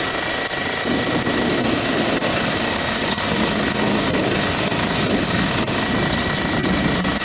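Belt grinder running with its steady whine while hardwood handle scales are ground against the abrasive belt, the rasp growing heavier about a second in as the wood is pressed to the belt.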